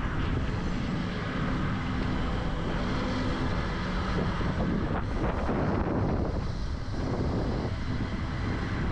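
An off-road vehicle's engine running steadily while the vehicle is recovered from a river, with wind rumbling on the microphone.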